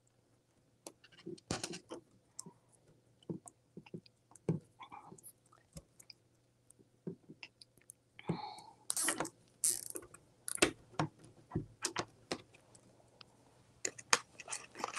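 Hands fastening plastic canvas pieces onto a metal wire wreath form: scattered light clicks, taps and rustles of plastic against wire, with a denser run of clicks a little past the middle.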